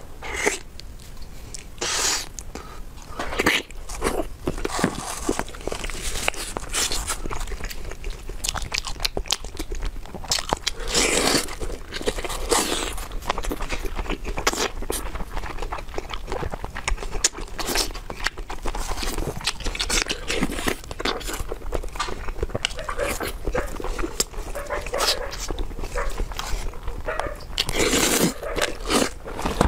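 Close-miked eating sounds of a person chewing, smacking and slurping mouthfuls of spicy hotpot, with many short clicks and louder bursts of slurping every few seconds.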